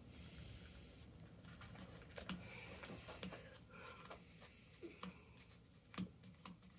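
Near silence with a few faint, scattered clicks and taps from fingers pressing candy dough into a small plastic Poppin' Cookin' mould tray.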